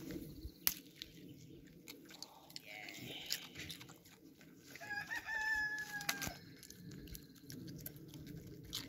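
A rooster crowing once, a long slightly falling call about five seconds in, over scattered clicks and rustling.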